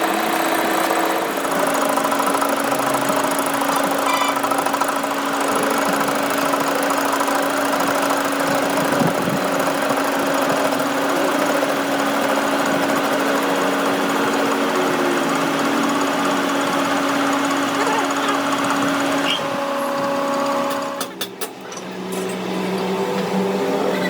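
A power tool running steadily with a constant hum and hiss; near the end it dips briefly, with a few clicks, then runs on at a lower hum.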